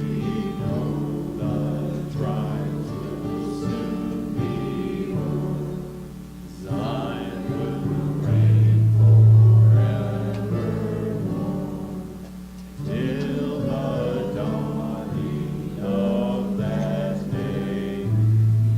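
A congregation singing a hymn together with instrumental accompaniment. The singing comes in phrases, with short breaks about six and twelve seconds in.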